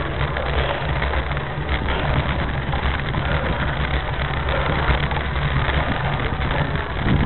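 Steady rumble and rattle of a bicycle riding up a cobbled street, the bike-mounted camera shaking over the cobbles.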